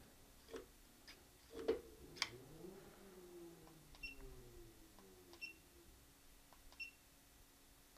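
A Swagtron Swagger 5 electric scooter's hub wheel motor gives a faint whine that rises briefly and then winds slowly down over a few seconds. The drive pulses and cuts out instead of running, which is the scooter's fault. Three short high beeps come evenly spaced in the second half, and a few light clicks come before the whine.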